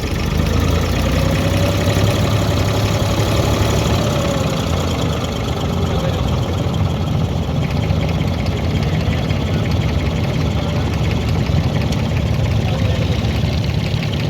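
Engine of an abra water taxi running steadily under way: a loud, continuous low drone, heard from on board.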